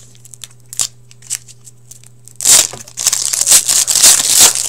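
Foil hockey card pack being torn open and crinkled by hand. A few faint crackles come first, then loud crinkling and ripping of the wrapper from about halfway in.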